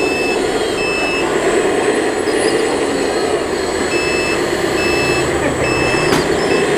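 Reversing beeper sounding in regular beeps a little over once a second, pausing for a couple of seconds midway. It is most likely the sound unit of a radio-controlled construction truck. Under it runs a steady mechanical hum, with one sharp click about six seconds in.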